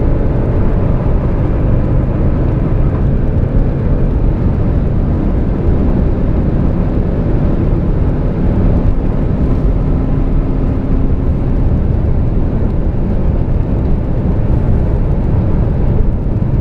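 Inside-cabin sound of a twin-turbo V8 performance car at very high speed, near 250 km/h: a steady, loud rush of wind and tyre noise with the engine's tone underneath.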